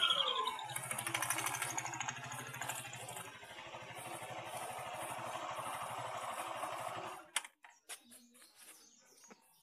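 Honda Vario 110 scooter's single-cylinder engine, running with the CVT cover off, settles from a falling rev into a steady idle with a fast, even ticking, then shuts off suddenly about seven seconds in. The scooter is being checked for a 'tek-tek' knocking from the CVT.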